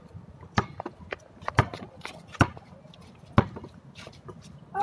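Basketball bouncing on a concrete court: sharp slaps at an uneven pace, about one every half second to a second.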